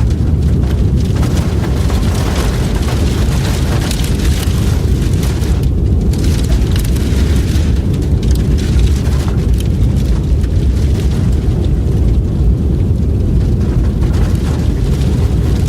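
Strong howling blizzard wind: a steady deep rumble with a hiss above it that swells and fades in gusts.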